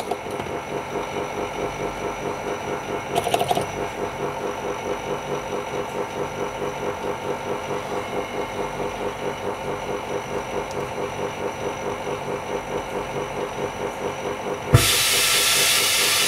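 Small electric vacuum pump running with a rapid, even pulsing hum. A short scrape comes about three seconds in, and near the end a loud steady hiss of air cuts in suddenly.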